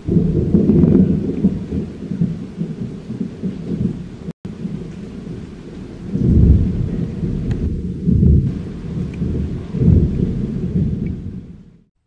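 Rain falling steadily, with deep rolls of thunder swelling several times, the strongest about six seconds in. The sound drops out briefly about four seconds in.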